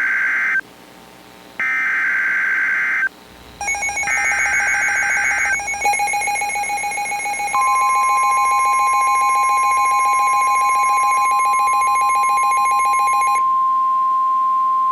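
Emergency Alert System tones announcing a new severe thunderstorm warning: the last of three warbling bursts of SAME header data, each about a second and a half long with short gaps. They are followed by the harsh pulsing two-tone EAS attention signal, which starts about 4 s in and stops about 13 s in. From about 7.5 s in, NOAA Weather Radio's single steady warning tone overlaps it and carries on past the end.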